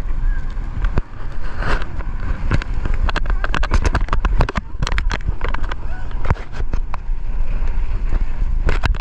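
Heavy wind buffeting a small camera's microphone as a towed inflatable tube moves fast over the sea, with frequent sharp knocks and splashes as the tube bounces on the water.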